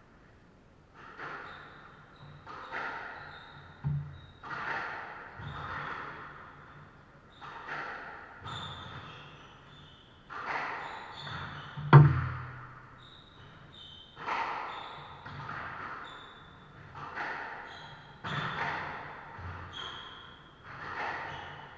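Squash rally: the ball cracking off rackets and the court walls every second or two, echoing in the court, with rubber-soled court shoes squeaking on the wooden floor. The hardest hit comes about halfway through.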